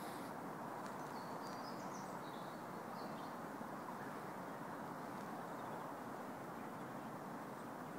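Steady outdoor background noise, with a few short, high bird chirps in the first few seconds.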